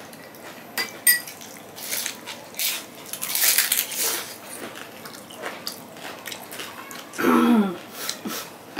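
A metal spoon clinks against a small glass bowl while tamarind water is spooned onto puris. Then comes crunching and chewing as crisp velpuri shells are bitten and eaten, and near the end a brief voiced sound.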